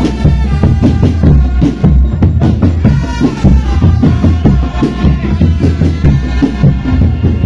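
Drum band playing: rapid, closely spaced drum strikes over a heavy bass, with a melody held above them.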